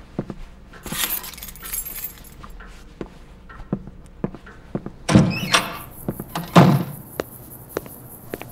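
Someone handling keys and a door: small clicks, knocks and a jangle, then two heavy thuds about five and six and a half seconds in.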